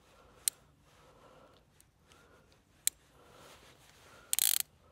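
Sharp metallic clicks from a Ruger Single Six .22 revolver as it is loaded by hand: single clicks about half a second in and near three seconds, as cartridges go into the cylinder and it is turned. Near the end comes a short, quick run of louder clicks.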